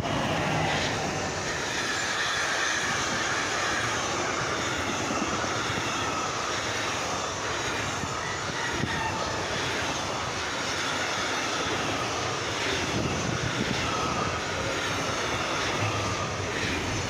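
Container freight train hauled by an electric locomotive rolling past: a steady, loud rumble of steel wheels on the rails, with a few faint knocks as the wheel sets go by.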